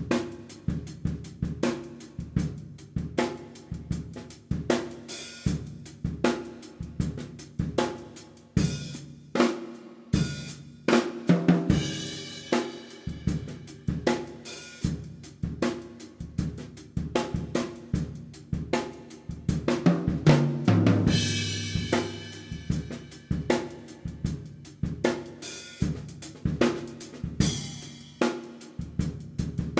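A drum kit playing a steady beat, with kick, snare and hi-hat, and cymbal crashes now and then, as background music.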